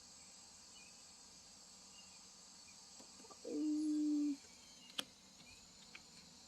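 Steady high chirring of insects, likely crickets, in the background. About halfway through, a loud low steady tone like a hum or horn is held for about a second, and a sharp click follows a second later.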